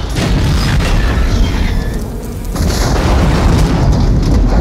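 Gasoline tanker truck exploding: a deep boom and heavy, continuing rumble of the fireball, easing briefly about halfway and then swelling again.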